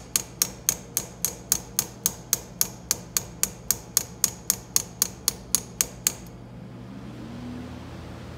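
Small hammer tapping a pin punch in a fast, even run of sharp metallic taps, about four a second, driving the roll pin out of a Mustang's factory shifter reverse lockout. The tapping stops about six seconds in.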